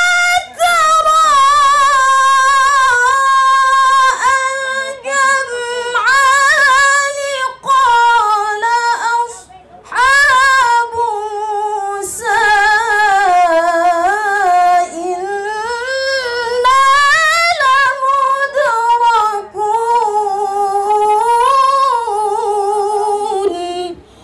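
A woman reciting the Quran in the melodic tilawah style into a microphone: long, high held notes with wavering ornamented melismas, in several phrases with short breaths between. The recitation ends just before the end as she lowers the microphone.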